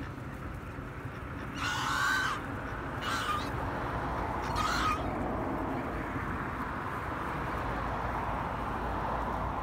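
Domestic swan goose (white Chinese goose) giving three harsh honking calls, the first the longest and loudest, the other two shorter. A steady rushing background noise builds over the second half.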